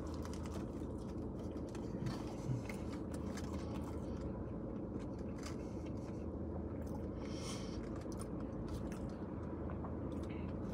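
Person biting into and chewing a crispy chicken sandwich, with quiet mouth sounds over a steady low hum inside a car cabin. A brief rustle comes about seven seconds in.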